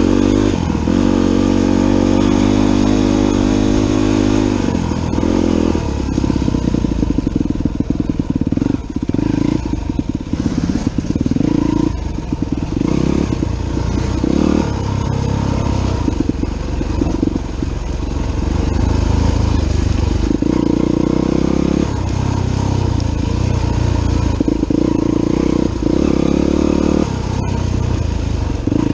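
Dirt bike engine heard from on board while ridden along a trail, its pitch repeatedly rising and falling with throttle and gear changes, steady in some stretches and choppy in others.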